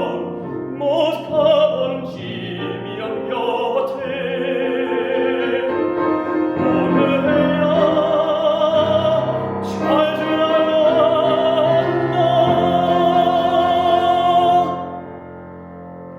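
Classical song with a baritone voice singing long held notes with vibrato over piano accompaniment. The voice drops away about fifteen seconds in, leaving the piano much quieter.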